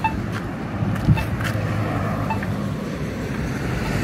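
Road traffic: cars driving past on the street, a steady hum of engines and tyres, with a few faint clicks.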